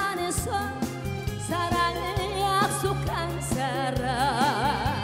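A woman sings a Korean song into a microphone over a band accompaniment with bass and drums, her voice in heavy vibrato. Near the end she holds one long note with a wide, slow vibrato.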